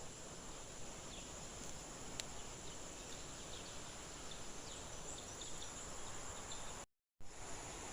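Outdoor garden ambience: a steady high-pitched drone of crickets or other insects, with short bird chirps scattered through it. Near the end the sound cuts out completely for a moment, then resumes.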